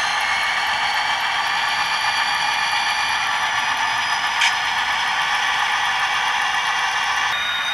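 Model diesel locomotive running slowly: a sound decoder's diesel engine sound through a tiny onboard speaker, thin with no bass, mixed with wheel and track clatter. A single sharp click comes about four and a half seconds in, and the sound changes abruptly near the end.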